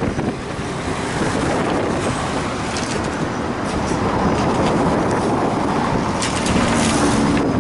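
Steady driving noise of a moving road vehicle heard from inside by an open window: road and engine noise with wind, and a few sharp rattles.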